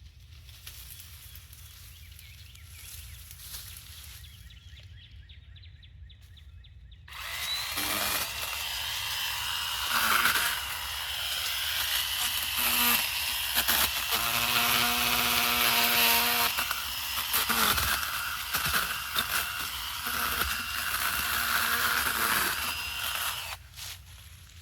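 ECHO DHS-3006 56-volt battery pruning chainsaw cutting through butterfly bush stems: after a few quiet seconds the saw starts about a quarter of the way in, runs with a steady whine while the chain cuts wood, and stops shortly before the end.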